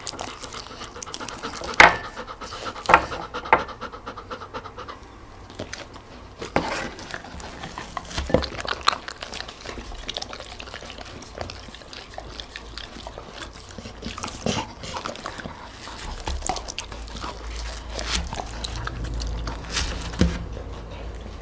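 A dog eating: panting breaths with irregular sharp chewing clicks, the loudest about two and three seconds in.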